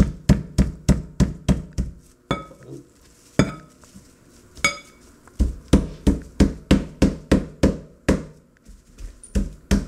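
Metal meat-tenderizing mallet beating alligator meat flat through plastic wrap on a cutting board, about four dull blows a second. The blows stop for about three seconds, when there are only a few single clinks with a short metallic ring, then start again.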